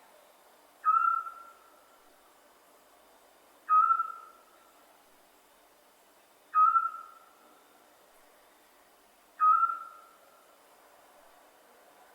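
Scops owl calling: a single short, clear whistled note, repeated four times at even intervals of about three seconds, each note starting sharply and fading away.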